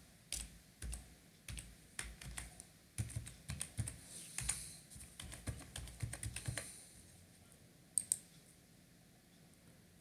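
Typing on a computer keyboard: an irregular run of keystrokes for about seven seconds, then a pause and two sharp clicks close together about eight seconds in.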